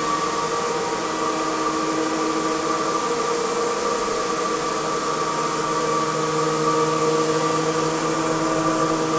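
Lagler TRIO three-disc planetary floor sander running on a hardwood floor: a steady motor hum over an even hiss from the sanding discs.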